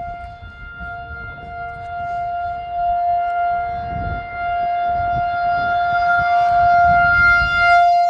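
Outdoor tornado warning siren sounding a steady, unwavering tone, loud and swelling louder over the last few seconds.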